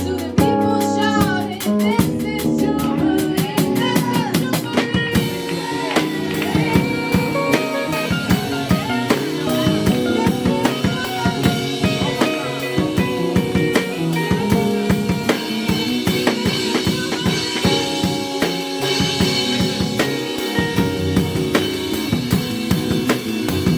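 Live gospel band playing instrumentally: drum kit with snare and bass drum under sustained keyboard chords, the drumming growing fuller and busier about five seconds in.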